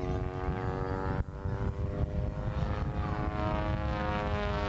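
Propeller engine of a Laser 200 aerobatic monoplane running hard in a display manoeuvre overhead, a steady droning note whose pitch shifts slightly as the plane turns, over a low rumble. There is a brief dropout a little over a second in.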